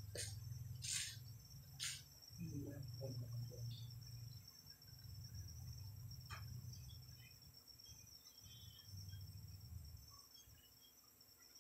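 Crickets trilling steadily under a low hum, with a few faint clicks near the start and one about six seconds in.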